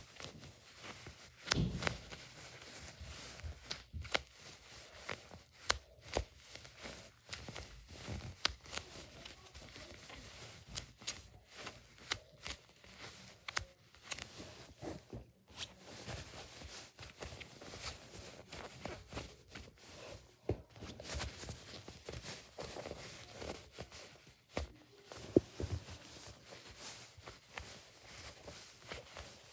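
Hands squeezing and rubbing squishy toys, a plush-covered one and a foam one: soft fabric rustling and scratching with irregular small taps and clicks. There is a louder bump shortly after the start and another near 25 seconds.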